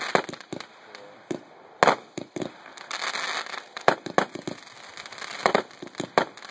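Consumer firework cakes firing: a dozen or so sharp bangs of shots launching and bursting at irregular spacing, with crackling stars between them.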